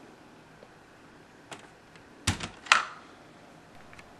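A few sharp plastic clicks and clacks from the LEGO model being handled: a faint one, then two loud ones about half a second apart a little past halfway.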